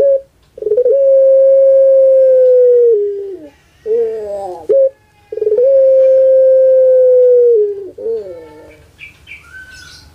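Puter pelung dove (Streptopelia risoria) calling: two long, steady notes of about two and a half seconds each, each dropping in pitch at its end, with short gliding notes between them.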